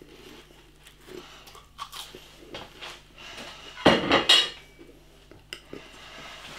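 Crockery and cutlery clattering, a loud cluster of clinks and knocks about four seconds in, with a few smaller clicks and knocks before and after.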